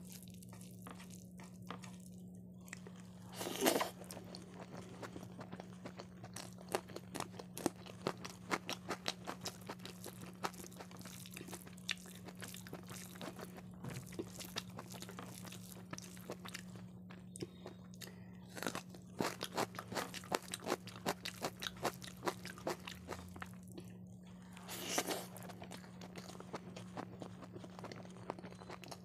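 Close-miked hand-eating: fingers mixing rice with dal and fried okra bhujia on a plate, and chewing, making many small clicks and wet smacks. Two louder crunches stand out, one about three and a half seconds in and one near the end, over a steady low hum.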